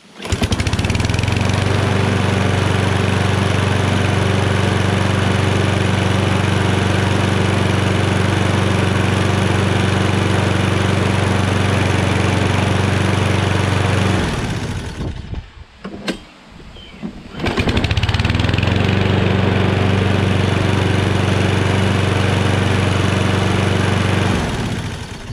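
Walk-behind push mower's small gasoline engine pull-started and catching at once, running at a steady speed for about fourteen seconds, then shut off. After a short gap with a single click, it starts again at once, runs steadily and is shut off near the end.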